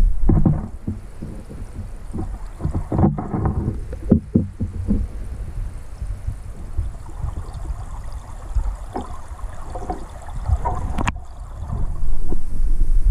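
Stream water flowing and gurgling, heard through an underwater camera: a muffled low rumble that swells unevenly, with a few sharp clicks or knocks about three, four and eleven seconds in.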